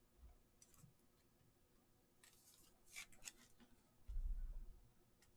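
Mostly near silence with a few faint clicks of a trading card in a rigid clear plastic holder being handled, and a soft low bump about four seconds in.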